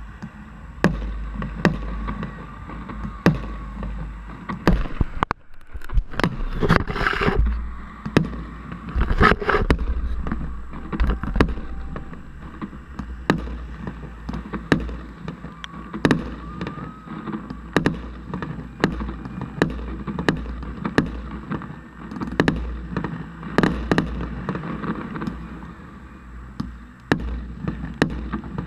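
Fireworks display: a run of sharp bangs from bursting shells, about one or two a second, over a steady low rumble, with two longer hissing stretches about a quarter of the way in.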